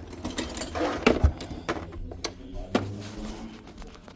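Irregular clicks and light metallic knocks of hand tools working on motorcycle brake parts, with a couple of louder knocks a little after one second in and near three seconds.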